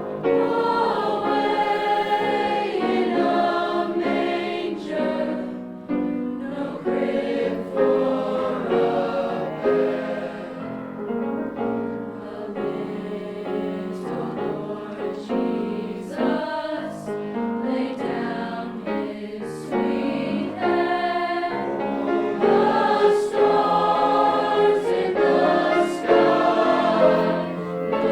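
High school choir singing in several parts.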